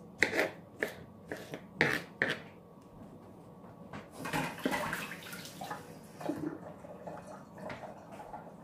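Knife strokes on a plastic cutting board while dicing tomatoes: about six sharp chops in the first two and a half seconds. After that come quieter clatter and handling noises.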